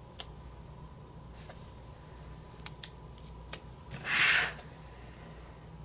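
A paper planner sticker being handled: a few light clicks and one short papery rasp about four seconds in, as the sticker is worked off its sheet or trimmed.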